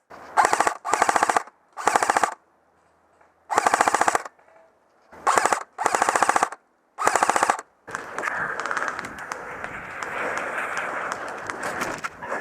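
Tokyo Marui G3 airsoft electric rifle firing seven short full-auto bursts over about eight seconds, each roughly half a second of rapid shots. After the bursts comes a steady rustling noise with faint ticks.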